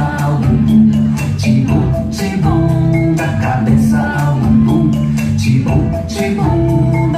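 Music with a steady percussive beat and sustained melodic tones.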